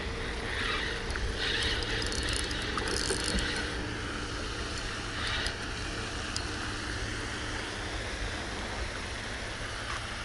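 Spinning reel being cranked to reel in a hooked small bass, with a scratchy, uneven whirr for the first five seconds or so, over a steady low rumble of wind on the microphone.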